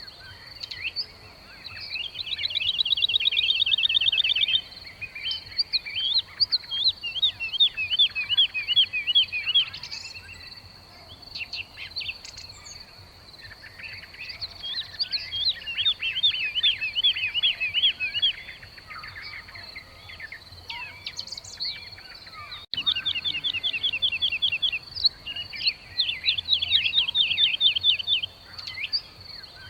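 Weaver birds chattering: bursts of fast, repeated high chirps run into rapid trills one after another, over a steady thin high-pitched whine.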